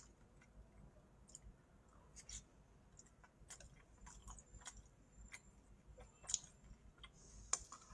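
Faint close-up eating sounds: soft chewing with scattered light clicks of chopsticks and mouth, and a short slurp of noodles near the end.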